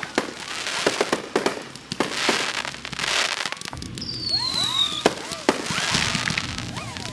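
Fireworks going off: a rapid string of sharp bangs with bursts of crackling hiss, and a high whistle falling in pitch about four seconds in.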